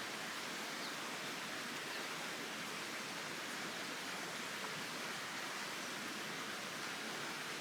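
A steady, even rushing hiss with no other events.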